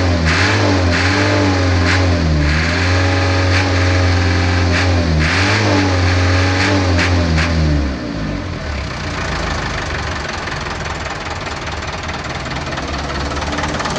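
A 1995 truck's engine revved up and down several times, then dropping back to a steady idle about eight seconds in.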